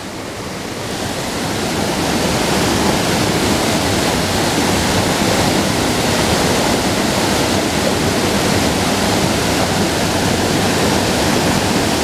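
Steady rushing of a small waterfall spilling over a rock ledge into a churning creek pool, building a little over the first two seconds and then holding even.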